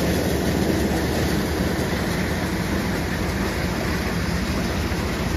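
Tractor-driven maize thresher running with a loud, steady rushing noise, the tractor's engine working underneath it.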